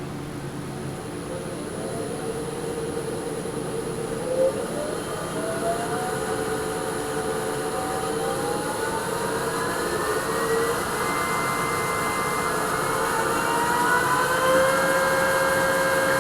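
Bauer 14x20 midi wood lathe running unloaded with its belt set on the lowest pulley, the motor whine rising in pitch as the speed is turned up, then holding steady near the end at about 150 RPM. It runs smooth.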